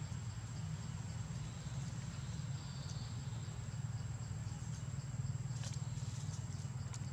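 Outdoor ambience: a constant high-pitched insect drone over a steady low rumble, with a few faint clicks or leaf rustles near the end.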